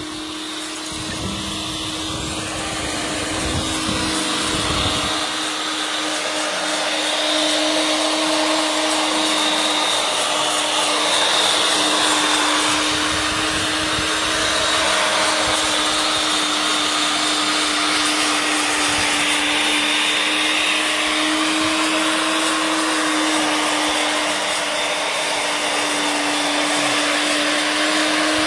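Stainless-steel high-speed electric herb grinder running, its motor and blades whirring steadily with a rushing sound as it grinds herbs into fine powder. It gets louder over the first few seconds, then holds steady.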